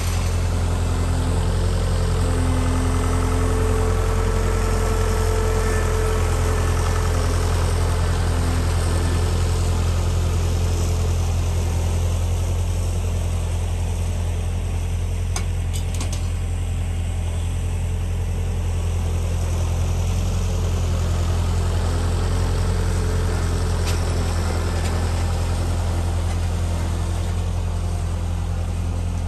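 Tractor engine running steadily at a constant speed while pulling a landscape rake across the lawn, with a few light clicks about halfway through.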